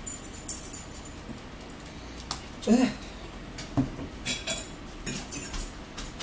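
Cutlery and dishes clinking as a meal is eaten: a fork working in a salad bowl and things being set down on the table, giving a series of light clicks and knocks. A short vocal sound, louder than the clinks, comes about three seconds in.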